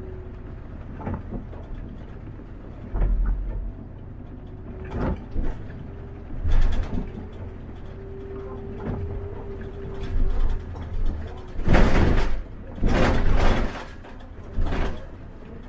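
City bus running, heard from the driver's cab: a low engine rumble with a steady hum that comes and goes, scattered knocks and rattles, and two loud rushing bursts of noise near the end.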